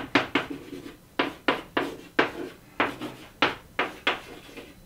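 Chalk writing on a chalkboard: a quick, irregular string of short, sharp taps and scrapes, about three a second.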